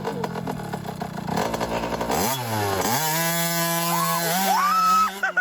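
An engine runs loudly over a noisy, rattling stretch. About two seconds in its pitch dips, then climbs and holds at steady high revs.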